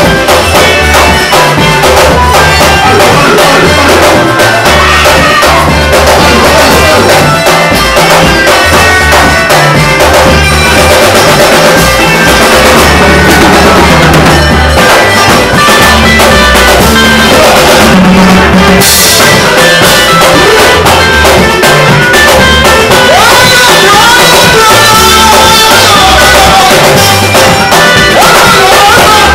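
Live band music with electric guitar and drums over a strong repeating bass line, playing a steady dance rhythm, with a voice singing in the second half.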